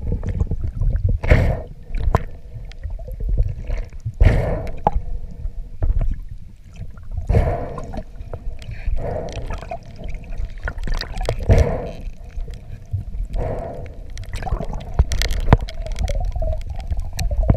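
Water rushing and gurgling against an underwater camera housing as a spearfisherman swims and handles his gun and line. A steady low rumble runs throughout, with a swish every two seconds or so.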